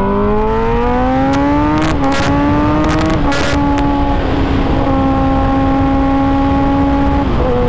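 Sportbike engine accelerating up a highway on-ramp. Its pitch climbs, dips at upshifts about two and three seconds in, then holds steady at cruising speed. Wind rushes over the rider's microphone throughout.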